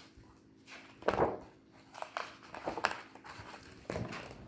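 A picture book being handled and opened: a few short paper rustles and soft knocks, the loudest about a second in.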